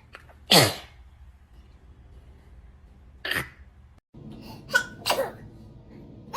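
Baby sneezing: a sharp sneeze about half a second in, another just after three seconds, then two smaller sneezes near the end.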